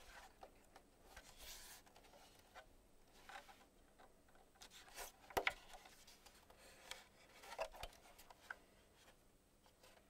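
Hands handling and turning over an audio interface: faint rubbing and brushing of fingers on its casing, with a few light clicks and taps, the sharpest about five seconds in.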